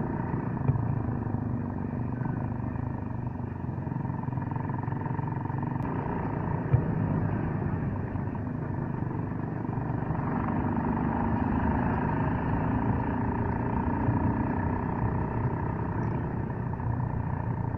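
Suzuki Gixxer 155's single-cylinder engine running while the bike is ridden, with a steady tone sitting above the engine noise. Two short knocks stand out, one under a second in and another about a third of the way through.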